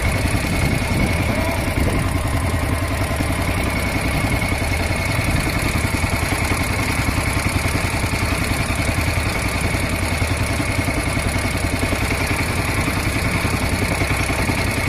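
Small fishing boat's engine running steadily at an even pitch as the boat moves through the water.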